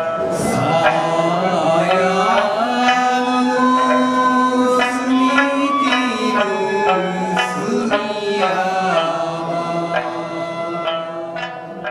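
Okinawan Ryukyu folk song: male voices singing over plucked sanshin, the three-stringed snakeskin lute, the sound easing down near the end.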